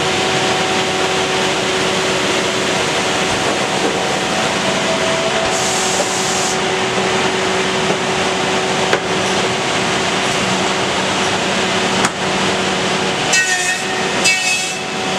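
A glue-beam production machine running, a steady hum of motors over mechanical noise. It gives a brief high hiss about six seconds in, a few clicks, and two short bursts near the end.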